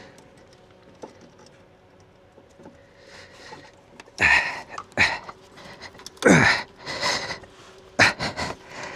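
A man grunting and breathing hard with effort: several short loud grunts and breaths from about halfway through, one a groan that falls in pitch. A faint steady hum sits under it.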